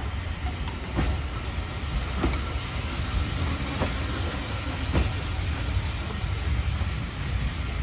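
Steam-hauled train of passenger coaches pulling slowly away, with a low rumble and the wheels clicking over rail joints about once a second.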